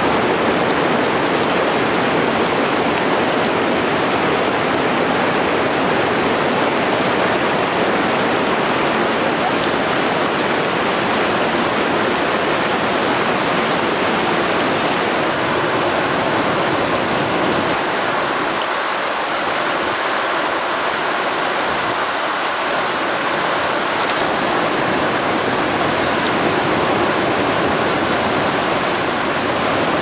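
Fast mountain river rushing over rapids and boulders: a loud, steady whitewater rush.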